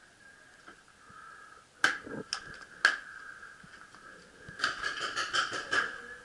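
Sharp pops of paintball fire: three single shots about half a second apart near two seconds in, then a quick burst of about nine shots in just over a second near the end.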